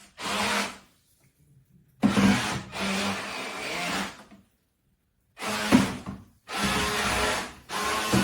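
Small electric motors and twin propellers of a toy RC tugboat running in spurts as the throttle is punched on and off: five bursts of a buzzing motor sound, the longest about two seconds, with sharp starts and short silent gaps between them.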